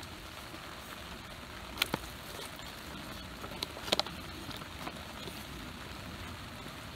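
A long-handled utensil stirring inside a freeze-dried meal pouch, knocking sharply twice, about two and four seconds in, over a steady outdoor hiss. The biscuits in the pouch are still hard and dry in the middle.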